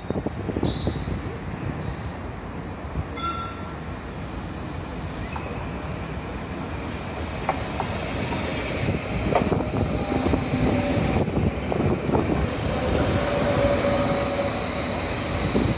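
CFL class 2300 (Stadler KISS) double-deck electric multiple unit running past close by: a steady rumble of wheels on the rails that grows louder as the carriages go by, with thin high whining tones over it.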